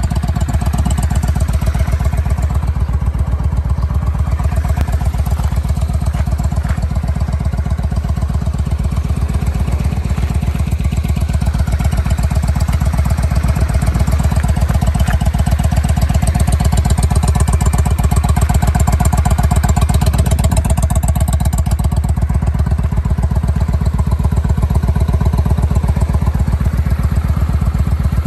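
Honda Steed 400 Springer's V-twin engine idling steadily, a loud, even exhaust beat with no revving.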